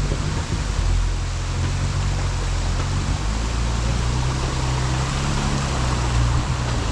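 Jeep engine running at low trail speed, its pitch shifting a little partway through, under a steady rushing noise of tires, wet ground or wind.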